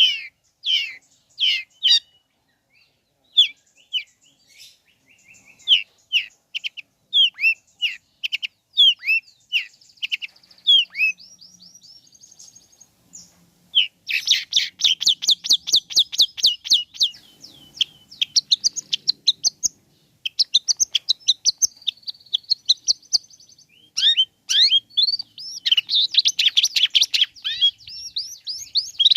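Long-tailed shrike (cendet) singing: a string of sharp, separate down-slurred chirps, a short pause, then fast rattling runs of high notes from about halfway through.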